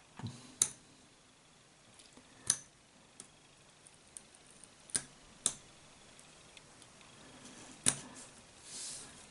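A small hand tool clicking and scraping against the plastic of a SIM card as a layer is pried off. There are about five sharp, irregular clicks and a short scratchy scrape near the end.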